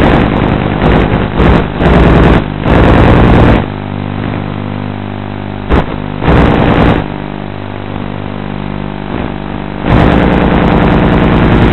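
A 450-size quadcopter's electric motors and propellers whirring, recorded by its onboard camera. The sound surges loud and rough in several bursts in the first few seconds and again near the end. A quieter, steadier whine fills the middle, with a short spike or two.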